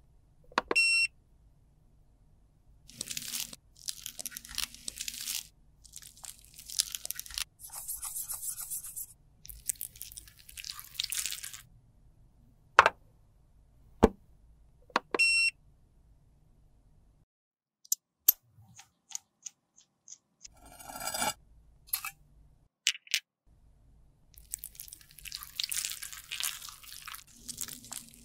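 Short electronic beep from a UV sterilizer box, twice, about a second in and again about fifteen seconds in. Between them come bursts of crunching, crackly handling noise and a few sharp clicks. Near the end there is more crunching as crumbled red lipstick is worked in a metal mould with tweezers.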